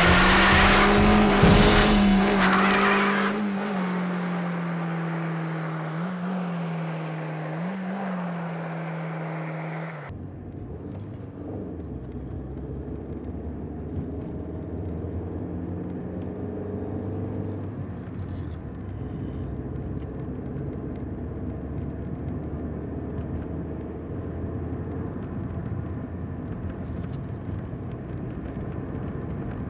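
A car engine running hard with tyres skidding for the first few seconds. The engine note then falls slowly, with two brief rises. About ten seconds in it cuts abruptly to a quieter, steady low rumble.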